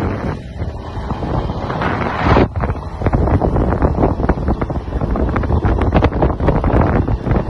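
Wind buffeting the microphone of a phone on a moving motorcycle, a loud, ragged rush with road and vehicle noise underneath. A stronger gust swells about two seconds in and cuts off sharply.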